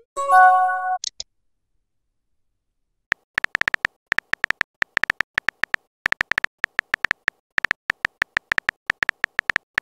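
Texting-app sound effects. A short synthesized chime of several stacked tones, with a brief high chirp at its tail, plays as a message is sent. After a pause of about two seconds comes a long run of rapid keyboard tap clicks as the next message is typed.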